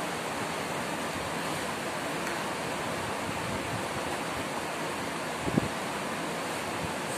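Steady hiss of room noise, with one short thump about five and a half seconds in.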